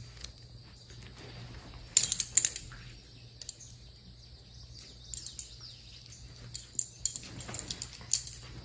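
Metal collar tags jingling in short, bright bursts as two dachshunds wrestle, the loudest burst about two seconds in and more scattered clinks later on.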